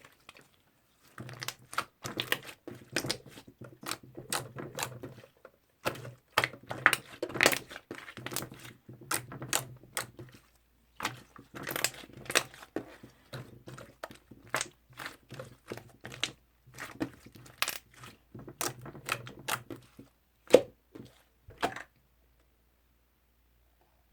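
Toffee slime being handled, with a quick irregular run of sticky clicks, snaps and small pops as it is pressed and stretched. The sound stops about two seconds before the end.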